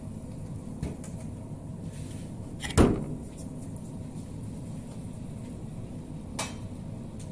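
One loud, sharp knock about three seconds in, as of something set down hard in the kitchen, with two lighter clicks before and after it, over a steady low hum.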